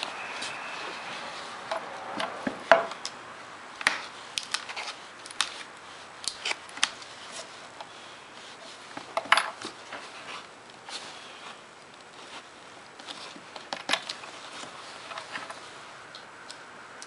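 Small pocket screwdriver prying and scraping around a speaker's rim where it sits in hardened body filler: irregular clicks, taps and short scratches as the tool works its way around.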